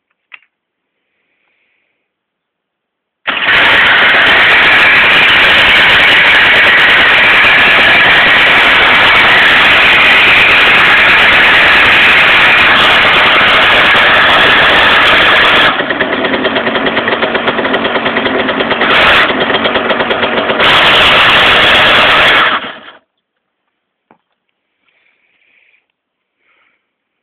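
Derbi GPR 50 moped's two-stroke engine (fitted with a 70cc kit) running loud, starting suddenly about three seconds in and cutting off about twenty seconds later, with a lower, pulsing stretch a few seconds before the end. The owner says it makes a strange rubbing noise whenever the engine runs, except with the clutch pulled in.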